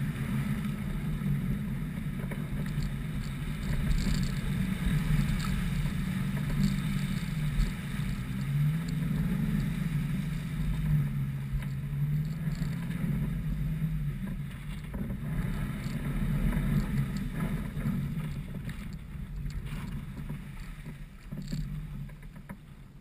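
Off-road vehicle's engine running as it drives slowly along a muddy track, its note rising and falling with the throttle. The sound fades near the end.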